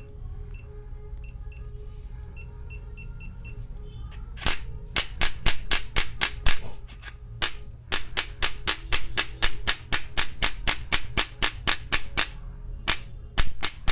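An electric chiropractic adjusting gun, the Biotronix 1200 N model: first its control panel gives quick short beeps as the power is stepped down, over a low hum. About four seconds in, the gun starts firing its sharp impulse clicks, a few at first and then a steady run of about four a second, with a brief pause near the end.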